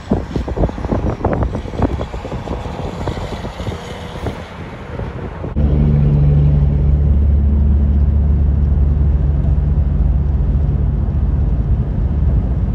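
A dump truck's engine running as it drives past, with wind buffeting the microphone. About five and a half seconds in this cuts to a louder, steady low drone of engine and road noise from inside a vehicle cruising on the highway.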